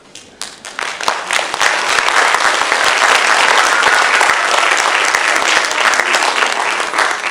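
Audience applauding in a theatre: scattered claps at first, quickly building into steady clapping from the whole house.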